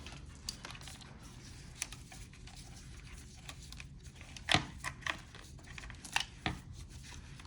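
Hands working plastic wiring-harness connectors and wires, with a few short sharp clicks and knocks, the loudest about four and a half seconds in.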